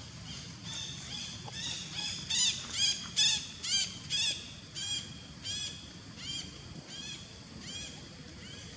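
A bird calling over and over, short arched notes about two to three a second, growing louder to a peak about three seconds in and then fading away, over a low outdoor background hum.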